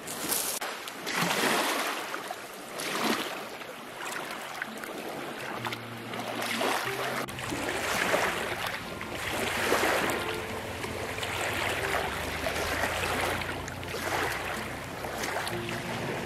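Small waves washing onto a pebble shore, swelling and falling back every second or two. A steady low hum joins about five seconds in.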